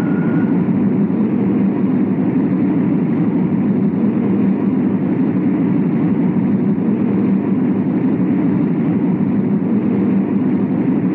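Pennsylvania Railroad diesel passenger locomotive running loud and steady as it rolls slowly past.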